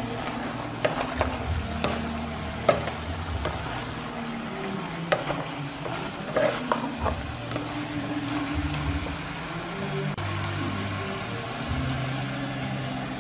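Wooden spatula stirring beef and vegetables in a metal pot, scraping and knocking against the pot's sides, over a hiss of the ingredients sizzling. The knocks come in a cluster over the first seven seconds or so, then the stirring goes quieter.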